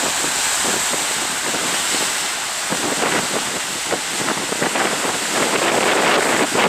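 Sea waves washing ashore, with wind buffeting the microphone in a steady crackling rush.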